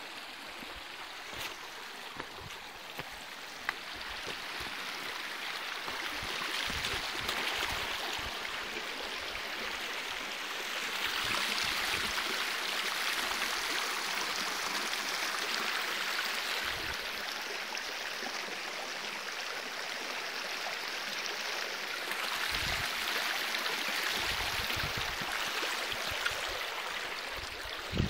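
Shallow water running over stones in a small stream, a steady rushing babble that swells louder twice, with occasional low thumps on the microphone.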